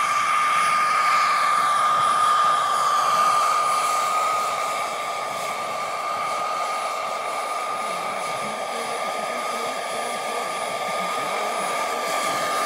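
Radio-controlled scale Huey model helicopter flying low: a steady high whine over a rushing rotor noise, a little quieter from about four seconds in.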